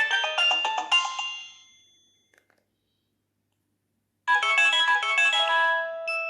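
Nokia 6030 polyphonic ringtones: one melody ends and fades out within the first two seconds, then after a short silence a different ringtone melody starts abruptly about four seconds in.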